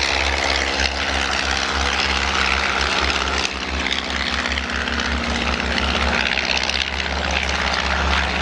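De Havilland Tiger Moth biplanes' Gipsy Major piston engines and propellers droning steadily in flight, with a slight shift in pitch about halfway through.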